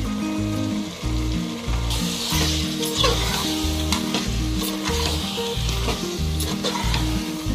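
Chicken pieces sizzling in hot oil and green masala paste in a pressure cooker while a perforated metal spatula stirs and scrapes them. The sizzling gets louder about two seconds in, once the raw chicken is turned into the hot masala. Background music with a repeating bass line plays underneath.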